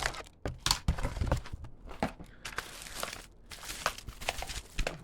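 Packaging being handled during the unboxing of a keyboard and mouse: irregular crinkling and rustling with scattered light clicks and knocks.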